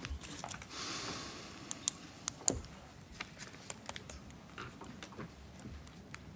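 Scattered sharp clicks and knocks of handling and movement in a small room, with a short rustle about a second in and the loudest knock about two and a half seconds in.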